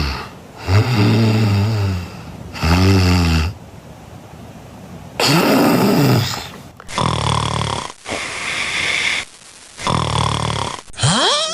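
Recorded human snoring from several sleepers played one after another, with loud snores about every two seconds. Among them is the choking, breath-stopping snoring typical of obstructive sleep apnea.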